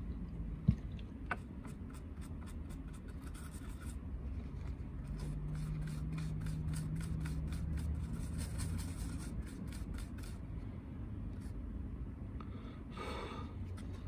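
Faint scraping and rapid light ticking of small hand tools working on a game console's circuit board, with one sharp click about a second in.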